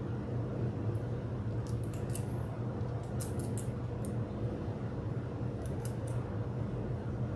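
Plastic wrap crinkling and rustling in three short bursts as it is pulled around a canvas and taped down underneath, over a steady low hum.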